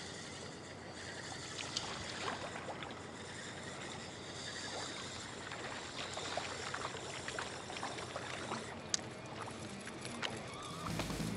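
Small waves lapping and trickling against a concrete quay, with scattered faint clicks and ticks throughout. A brief low rumble comes near the end.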